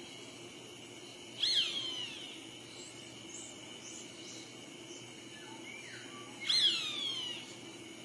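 Roadside hawk calling twice, about five seconds apart, each call a drawn-out scream falling sharply in pitch and lasting under a second. Faint short chirps of other birds sound between the calls, over a steady high-pitched drone.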